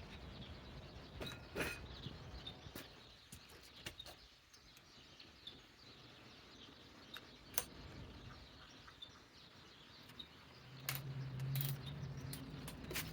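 Faint bird chirps over low background noise, with scattered clicks and knocks. A low steady hum comes in near the end.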